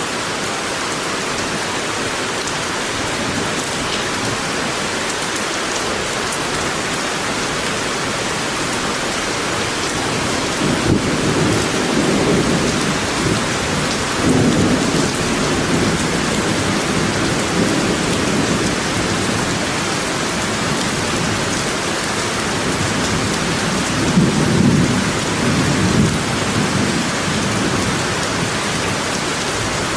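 Steady rain falling, an even hiss throughout, with two swells of low rumbling, one about a third of the way in lasting several seconds and a shorter one later.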